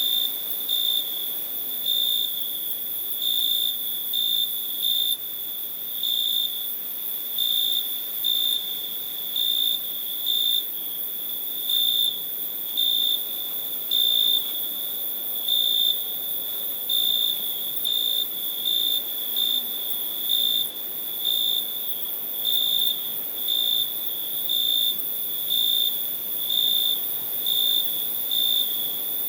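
A cricket chirping: a continuous high trill that swells into louder chirps about once a second.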